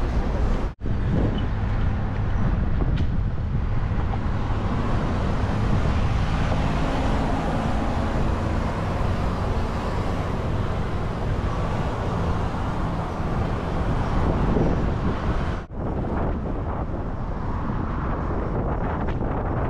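Wind rushing over the microphone mixed with steady road traffic passing close by. The sound breaks off abruptly twice, about a second in and near the end.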